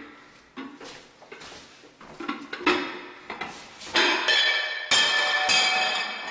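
A covered glass baking dish clinking and knocking as it is handled and slid into a wall oven, sparse at first and louder and busier from about four seconds in.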